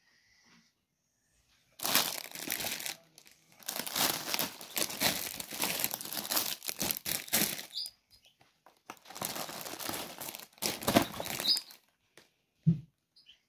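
Plastic food packaging crinkling and rustling as bagged groceries are handled and shifted, in three bouts with short pauses between. A soft low thump near the end.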